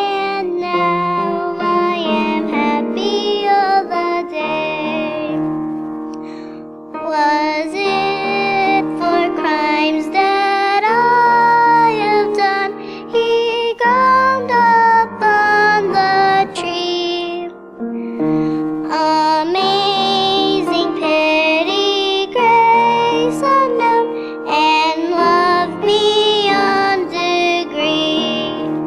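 A young girl singing a solo, accompanied on grand piano.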